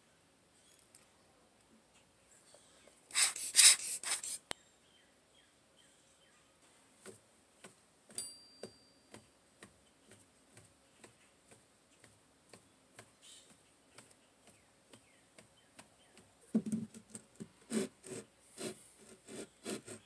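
A hand brush sweeping loose molding sand off a wooden workboard in a short burst a few seconds in. Then comes a faint, even ticking about twice a second. Near the end there are wooden knocks and rubbing as a wooden molding flask is set down and handled on the board.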